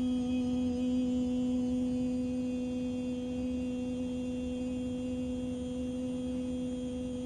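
A single steady held tone, even in pitch, with a clear overtone an octave above it; it holds for about nine seconds and stops abruptly.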